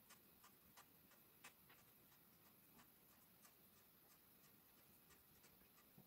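Very faint, irregular soft ticks of an ink brush dabbing short leaf strokes onto paper, over quiet room hiss.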